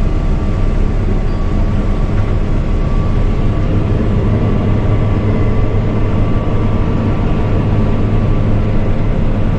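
Case combine harvester with an Iveco engine running, heard from inside its cab: a steady low drone of engine and machinery with a faint constant whine above it.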